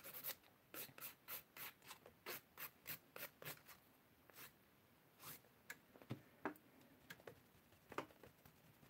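A nail file rubbing across acrylic nails in short, faint strokes, about three a second at first, thinning to a few scattered scrapes after about four seconds.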